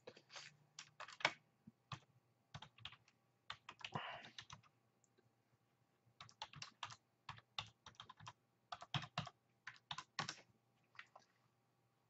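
Faint typing on a computer keyboard: quick runs of key clicks, with a pause of about a second and a half just before the middle.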